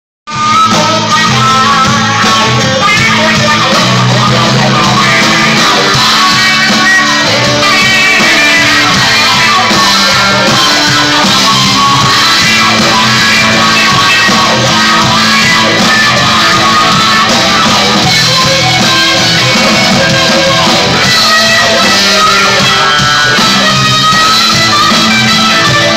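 Live rock band playing loud, guitar to the fore.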